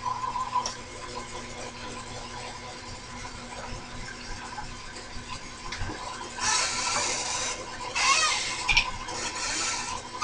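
Milling machine running with a steady hum while a drill bit is fed into metal, with a scraping hiss of the bit cutting about six and a half seconds in and a brief squeal about eight seconds in.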